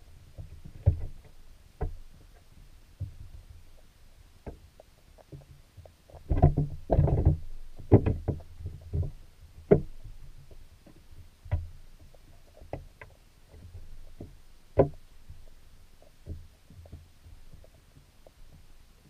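Muffled underwater sound of a creek picked up by a submerged camera: a low water rumble with scattered knocks and clicks, and a denser run of thumps about six to seven and a half seconds in.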